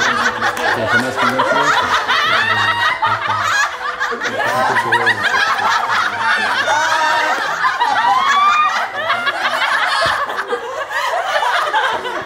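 A group of young women laughing together, many voices overlapping in continuous loud laughter with high rising and falling peals.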